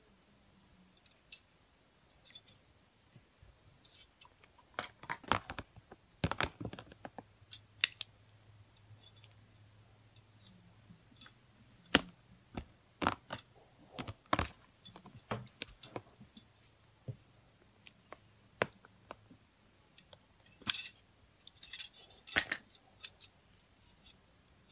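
Thick slime being pressed and squished by hand in a plastic tub, giving irregular sharp pops and clicks, with the sharpest one about halfway through.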